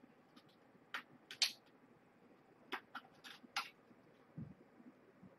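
Faint, short scratches and clicks of kittens' claws on a sisal-rope scratching post, half a dozen scattered over a few seconds, then a soft low thump about four and a half seconds in.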